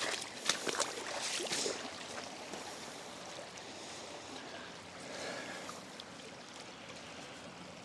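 Floodwater runoff rushing steadily down a drainage trench, with a few short sharp noises in the first couple of seconds.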